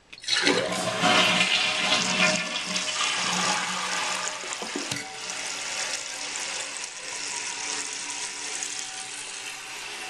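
2011 Gerber Avalanche 1.28 gpf toilet flushing, heard close over the open tank. A sudden rush of water, loudest for the first few seconds, eases into a steadier hiss, with one short knock about five seconds in.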